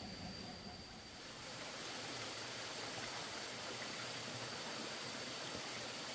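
A steady rushing noise that swells about a second and a half in and then holds even.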